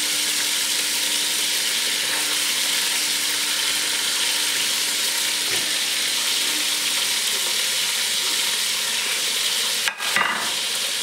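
Pieces of raw meat sizzling as they fry in a hot stainless steel pot, a steady hiss.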